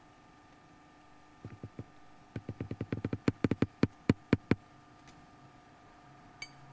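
A rapid series of about twenty sharp knocks, beginning about a second and a half in and stopping a little after four and a half seconds. The last few are the loudest and more widely spaced.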